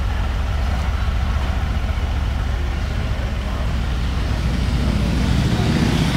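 Brabus-tuned 4.0-litre twin-turbo V8 of a Mercedes-Benz G 550 4x4² running at low speed with a deep, steady rumble as the truck creeps off, getting louder near the end.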